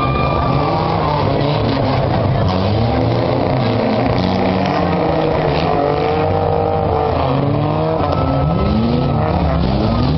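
Several demolition derby cars' engines running and revving at once, their pitches rising and falling.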